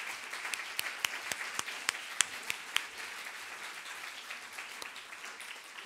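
Audience applauding, with sharp individual claps standing out over the first three seconds before the clapping thins and fades.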